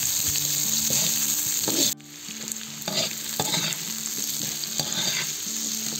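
Carrot sticks sizzling in hot oil in a cast-iron kazan while a metal skimmer spoon stirs and scrapes them. The sizzle is loud, drops abruptly about two seconds in, then carries on quieter with a few scrapes of the spoon.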